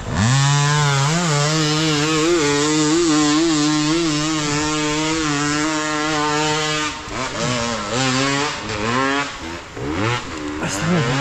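Enduro dirt bike engine pulling hard. The revs climb sharply at the start and hold high and steady for about seven seconds with a slight regular wobble, then dip and rise several times as the throttle is rolled off and on.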